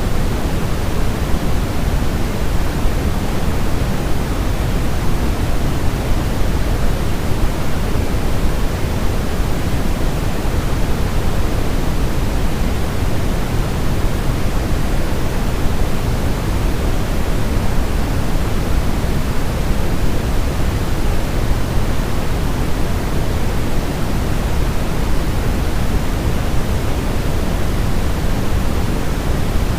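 Steady white-noise sleep track: an even, unbroken rushing hiss, heavier in the deep end than in the highs.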